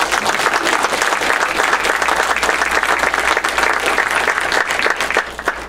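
Congregation applauding: dense clapping from many hands that dies away near the end.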